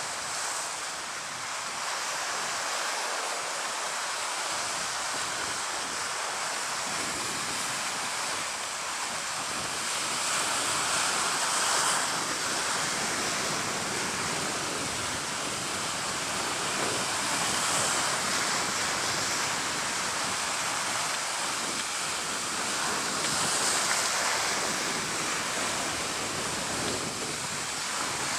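Sea waves washing, a steady rushing hiss that swells about every six seconds.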